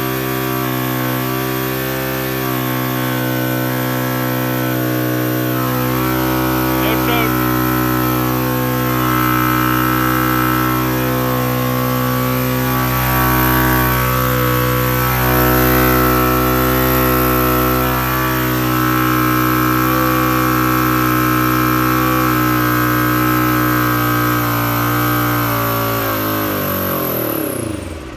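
2001 Kawasaki Ninja 250's parallel-twin engine running at a steady, fast idle while the idle screw is turned, then slowing and dying just before the end. It will not idle below about 4,000 rpm, which the owner suspects is a vacuum leak at the intake seals between carburettor, engine and air box.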